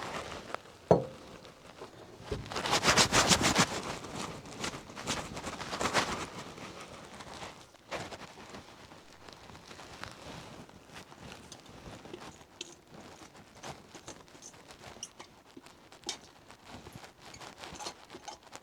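Kitchen handling sounds: a sharp knock about a second in, then a few seconds of fast rattling clatter, another short burst, and scattered light clicks.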